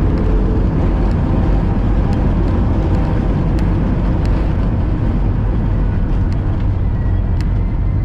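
Steady low roar inside the cabin of a jet airliner rolling out on the runway just after touchdown, with the spoilers deployed.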